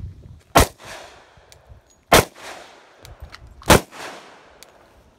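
Three shots from a Glock 29 10mm pistol, fired slowly about a second and a half apart, each a sharp report with a trailing echo.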